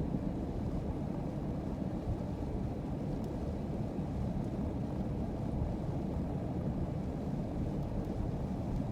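Steady low rumble of a car driving along: engine and tyre noise with no sudden events.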